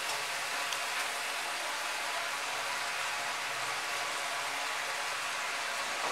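Oil sizzling steadily in a large frying pan, a constant even hiss, with a couple of faint ticks about a second in.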